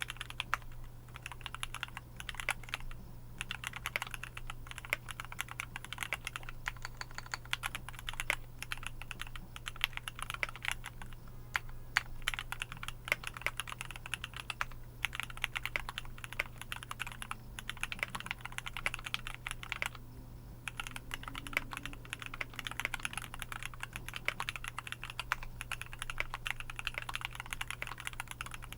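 Continuous fast typing on a KBDFANS Tofu65 mechanical keyboard with a brass plate and Gateron GoldCap V2 linear switches: a dense run of keystroke clacks, broken by a few short pauses.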